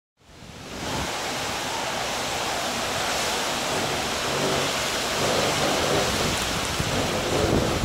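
Hurricane wind and heavy rain: a steady rush of wind whipping through palm trees with driving rain, swelling a little in gusts. It fades in over the first second.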